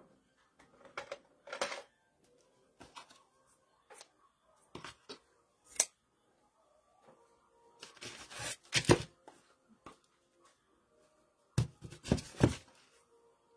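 Scissors snipping and craft materials rustling on a worktable: scattered sharp clicks, with louder clusters of knocks and rustling about eight seconds in and again near the end.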